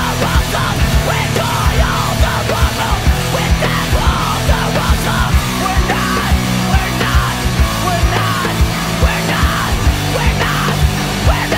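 Loud, heavy punk or metal music with a fast, pounding drum beat under dense, sustained low notes.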